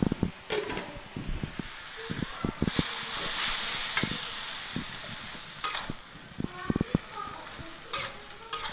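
Water spinach sizzling in a wok, with a spatula scraping and knocking against the pan as the greens are stirred. The sizzle swells loudest for a second or two about three seconds in.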